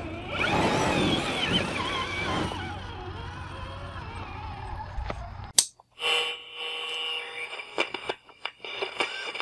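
Electric motor and gear drive of an Axial SCX10 III RC rock crawler whining, its pitch rising and falling with the throttle as it climbs rock. About halfway through this gives way to a sharp hit followed by electronic sound effects with held tones and clicks.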